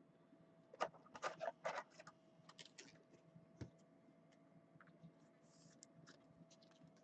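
A trading card being slid into a rigid plastic top loader: a quick run of plastic clicks and scrapes about a second in, a few more just after, then faint scattered ticks over a faint steady hum.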